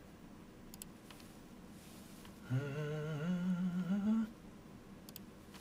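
A man humming a short, slowly rising phrase for nearly two seconds, starting about two and a half seconds in.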